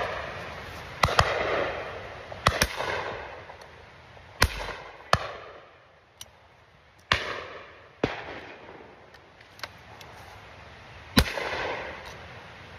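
Shotgun shots on a driven game shoot: about ten bangs at uneven intervals, some loud and close, others fainter. The loudest shots are each followed by a rolling echo that dies away over about a second.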